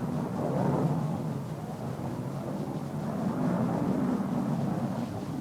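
Jet aircraft engine roar: a steady rushing rumble that swells a little about a second in and again past the middle.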